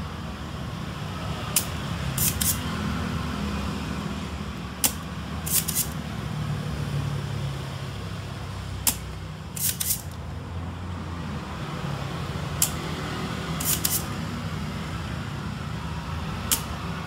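Desoldering pump at work on a circuit board: a sharp click followed by two or three short hissing snaps, repeating about every four seconds, five times over, as solder is sucked off a component's joints for replacement. A low steady hum runs underneath.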